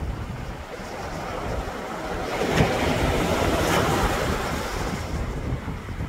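Small sea wave washing in on the beach: the hiss of the surf swells over a couple of seconds, is loudest around the middle, then fades away.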